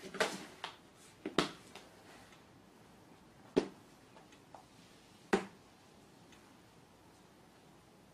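About five sharp, scattered taps and knocks, irregularly spaced, from a cat at play.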